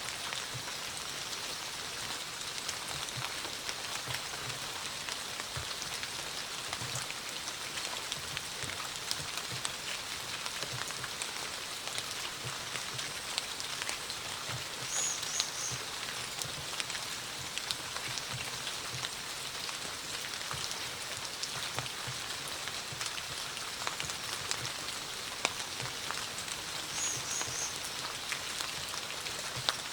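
Steady autumn rain falling, with many individual drops tapping and dripping close by. A brief high three-note chirp sounds twice, about halfway through and near the end.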